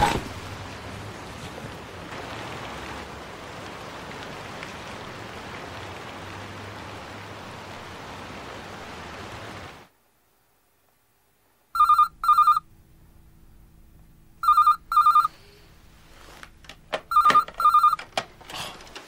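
Telephone ringing in a double-ring cadence: three pairs of short rings about two and a half seconds apart, starting about twelve seconds in. Before it there is about ten seconds of steady background noise, then a moment of dead silence.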